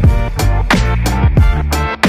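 Background music with a steady, driving beat.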